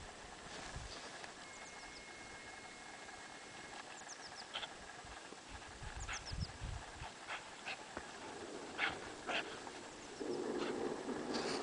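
A dog giving short, sharp yips and barks, spaced out at first and coming more often in the second half, as dogs play and chase.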